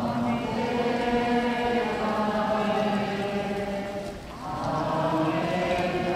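Many voices singing a hymn together in long, held notes. There is a short break between phrases about four seconds in.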